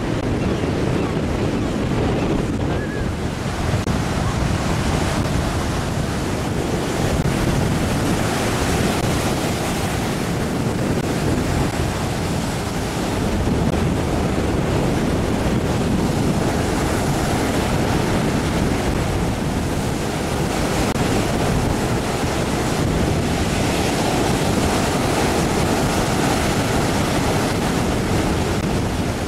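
Baltic Sea surf: waves breaking steadily on a sandy beach, with wind noise on the microphone.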